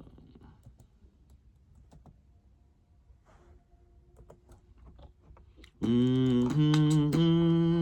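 Faint computer keyboard and mouse clicks, then about six seconds in a synthesizer from FL Studio's Flex plugin comes in loud, playing three held notes one after another.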